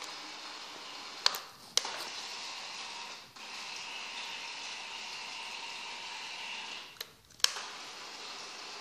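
The small electric motor of a remote-controlled car driving a raft's propeller, running steadily with a faint whine as it churns the water. It stops briefly twice, about a second in and about seven seconds in, each break opening and closing with a sharp click.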